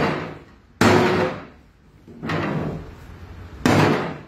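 A sledgehammer striking a clear plastic chair: two hard bangs about three seconds apart, each dying away over about half a second, with a softer knock between them.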